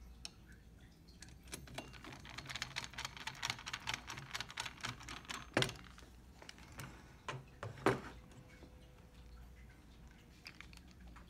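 A run of quick, light clicks and rattles, then a few louder single clicks, from small screws and plastic parts of an ATM's receipt printer being handled and put back together.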